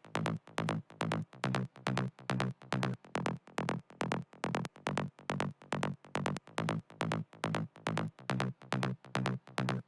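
Trance mid bass played on its own: a synth bassline of short, evenly spaced notes, about four or five a second, in a steady rolling rhythm.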